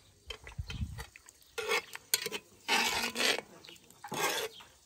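A utensil stirring and scooping through potatoes, bacon and sauce in a cast-iron Dutch oven: three wet scraping strokes, after a couple of low bumps in the first second.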